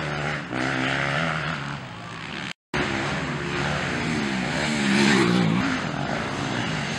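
Motocross bike engines revving up and down as the bikes race over the dirt track. The pitch climbs highest and loudest about five seconds in. The sound cuts out completely for an instant a little after two and a half seconds.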